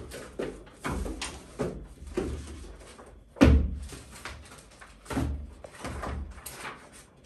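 Books and papers being handled on a wooden desk: a string of knocks and thumps with paper rustling, the loudest thud about three and a half seconds in.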